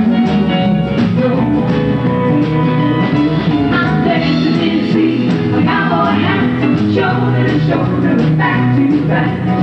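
Live country band playing a song with a singer at the microphone, amplified through the stage speakers: guitars, bass, keyboards and drums under the lead vocal, loud and steady.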